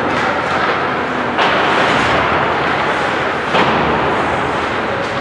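Ice hockey arena noise: a steady wash of skating and crowd sound, with two sharp thuds of puck or players against the boards and glass, about a second and a half in and again near three and a half seconds.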